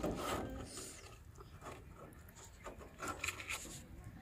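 Scraping and rubbing noises from things being handled in a small boat, loudest at the start and again about three seconds in.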